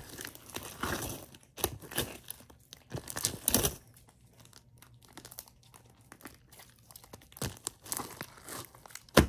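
Hands squishing and pulling sticky, fluffy homemade butter slime: irregular sticky crackling and squelching, busiest in the first few seconds, dying down in the middle and starting again near the end with one sharp, loud snap just before it stops.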